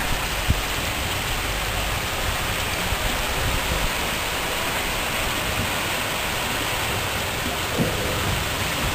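Heavy rain pouring down steadily in a strong thunderstorm, an even hiss of water.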